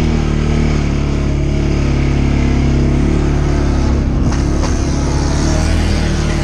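CFMoto CForce 550 ATV's single-cylinder engine running at a steady speed while riding, with a few short knocks about four seconds in.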